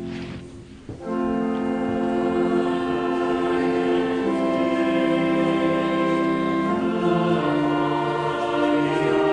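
Church organ playing slow, sustained chords. There is a brief dip about a second in, then a new chord that is held and shifts about seven seconds in.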